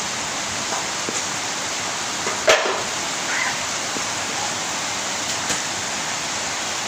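Heavy rain pouring down in a steady, dense hiss. A single sharp knock about two and a half seconds in stands out as the loudest moment.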